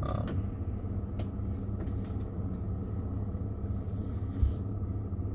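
Truck engine idling, heard from inside the cab as a steady low rumble, with a few light clicks and a short soft thump about four seconds in.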